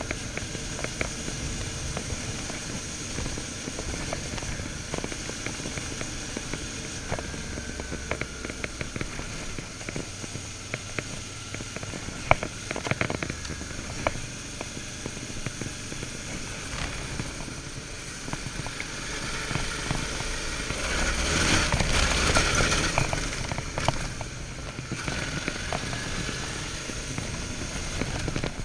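Suzuki V-Strom 650's V-twin engine running as the motorcycle rides a trail, with many crackling clicks and rattles over it. The sound swells for a few seconds about three-quarters of the way through.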